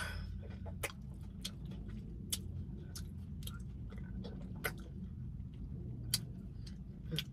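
A person chewing food with the mouth close to the microphone, giving irregular wet clicks and smacks.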